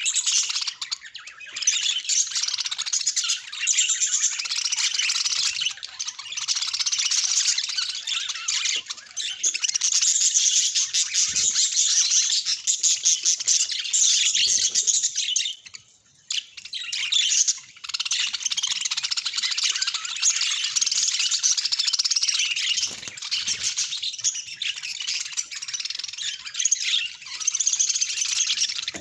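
Small birds chirping and chattering in a dense, near-continuous stream of high-pitched calls, with a brief pause about halfway through.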